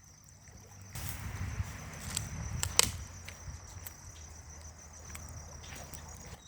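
Insects trilling steadily in a high, thin tone, with a few sharp clicks and a low rumble during the first few seconds.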